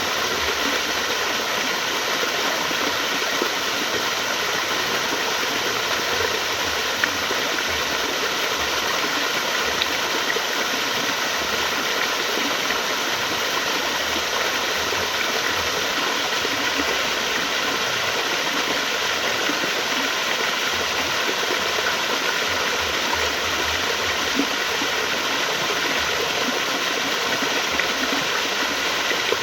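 Flowing water rushing steadily and evenly, without a break.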